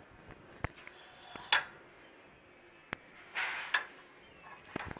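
A few sharp clinks and knocks of kitchen utensils, the loudest about a second and a half in, over a faint steady hiss of garlic slices and dried red chillies frying in oil.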